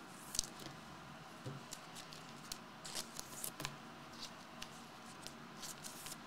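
Trading cards being handled, with faint scattered clicks and ticks as the cards slide against one another and are set down on a table mat. The sharpest click comes about half a second in, with a few more around three seconds in.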